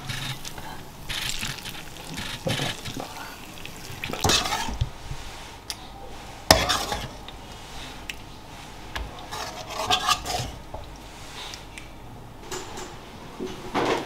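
Metal spoons and a ladle clinking and scraping against steel and brass dishes as food is spooned and ladled out, in scattered bursts with one sharp clink about six and a half seconds in.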